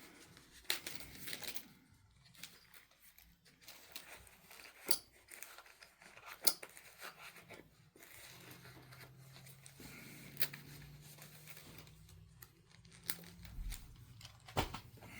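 Hands working with plastic pry tools on a laptop: scattered light clicks, taps and rustling.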